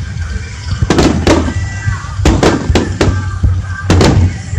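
Aerial fireworks in a rapid star-mine barrage: about six loud bangs, some in quick pairs, each trailing off in a ringing echo.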